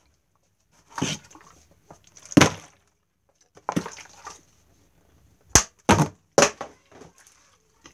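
Plastic water bottle being flipped and landing on a hard surface, giving a series of short knocks and thuds, three of them in quick succession about two thirds of the way through.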